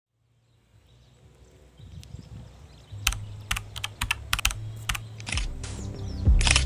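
Keyboard typing sound effect: about seven sharp key clicks in an uneven run over two seconds, over a low hum that grows louder. Music comes in near the end.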